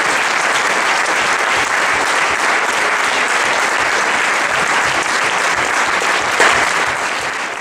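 Audience applauding steadily in a large hall, easing off slightly near the end.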